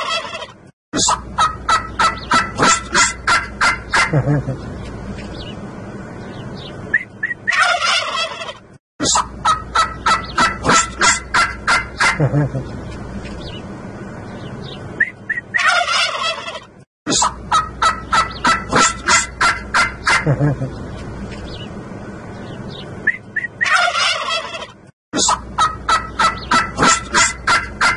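Domestic turkey toms gobbling. About every eight seconds there is a loud call falling in pitch, then a fast rattling run of about a dozen pulses lasting a few seconds.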